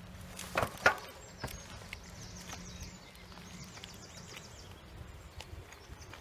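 Bicycle ridden along a rough tarmac path, rattling with two sharp knocks just under a second in. Faint high bird twittering repeats in the background for a few seconds.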